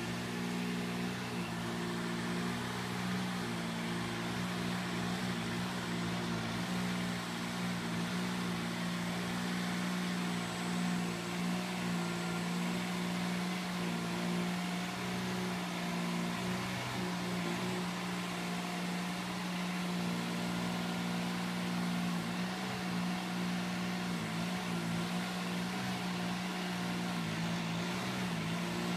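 Dingo mini tractor's engine running at a steady working pitch as it drives a rotavator through the floor litter, a constant hum that does not change.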